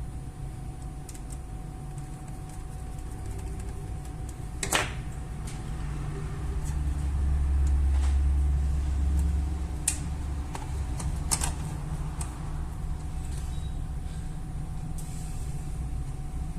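A few sharp clicks over a steady low hum and a faint steady tone, with a louder low rumble swelling for about three seconds in the middle.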